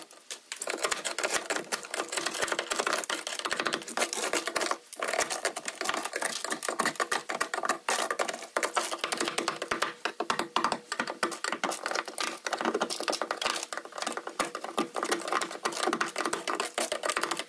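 Dry ice pellets and a hand tool clattering and scraping on a car's bare sheet-metal floor as frozen sound-deadening is chipped and cracked off: a fast, continuous clatter of clicks with brief lulls.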